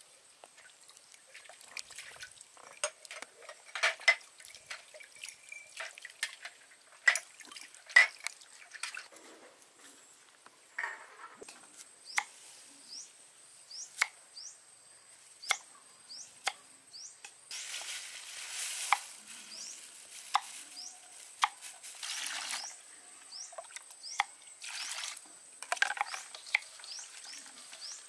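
Hands-on cooking sounds: sharp clicks and taps of utensils and dishes being handled and stirred, with a few brief splashes of liquid being poured. Faint, short high chirps recur in the background in the second half.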